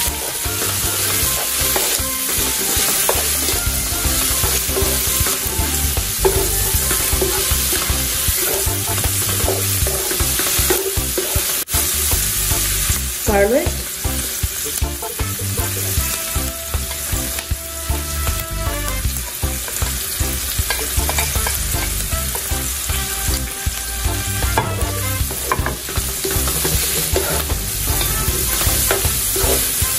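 Sliced onions sizzling in hot oil in a large aluminium pot on medium-high heat, a steady frying hiss. A wooden spatula stirs them, scraping and tapping against the pan with small clicks.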